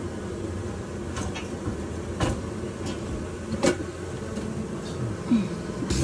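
Honey bee colony buzzing in a steady drone close to the comb, with two sharp clicks about two seconds and three and a half seconds in.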